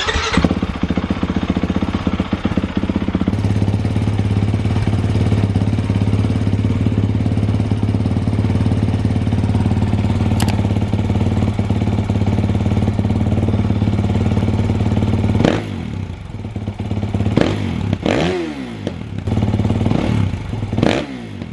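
2021 Kawasaki KX450X's single-cylinder four-stroke engine on its stock exhaust starting up and idling steadily. Near the end the throttle is blipped three times, each rev falling back to idle.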